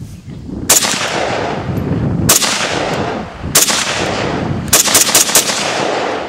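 Gunshots, seven in all: three single shots a second or more apart, then a quick string of four. Each shot is followed by a long fading echo.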